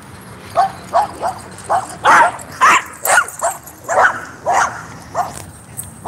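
Dog barking repeatedly: about a dozen short, sharp barks, two or three a second, starting about half a second in.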